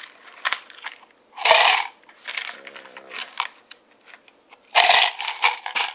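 Loose nickels clinking and scraping together as a hand sorts them on a felt-lined tray, with scattered single clicks and two louder bursts of jingling, one about a second and a half in and one near the end.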